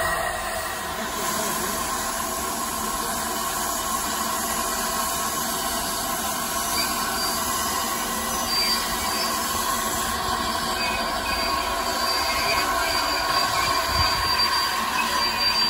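LNER A3 Pacific steam locomotive 60103 Flying Scotsman moving slowly past on the rails with a steady rumble and hiss. A thin, high wheel squeal comes in about two-thirds of the way through.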